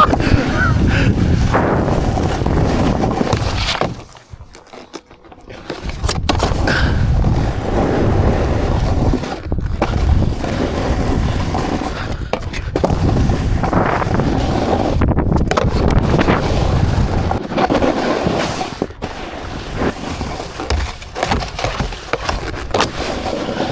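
Scraping rumble of a rider sliding over packed snow, with wind buffeting the camera microphone. It drops away briefly about four seconds in, then picks up again.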